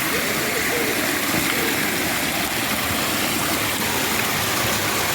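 A small woodland waterfall rushing steadily in full flow, swollen by heavy overnight rain.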